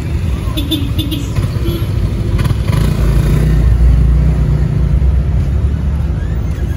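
Low, steady rumble of a motor vehicle engine, swelling louder from about two and a half seconds in, with a few light clicks in the first couple of seconds.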